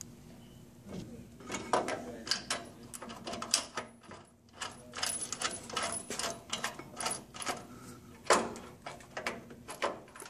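Metal clinks and clicks as a Baer SS4 billet-aluminium four-piston rear brake caliper is set over the cross-drilled rotor and fitted to its mounting bracket. They come as an uneven run of sharp clicks with a short lull about four seconds in.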